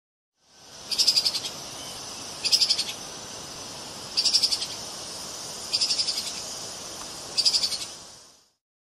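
Treeshrew chattering: five short bursts of rapid clicks, evenly spaced about one and a half seconds apart, over a steady hiss.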